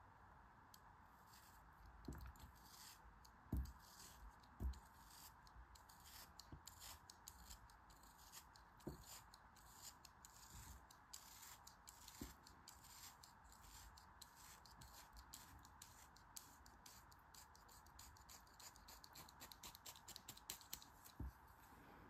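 Kinetic sand being sliced with a thin metal blade: many fine, crisp crackling scratches as the blade passes through the packed sand, coming faster and denser near the end, with a few soft low thumps as the sand is handled, over a faint steady hiss.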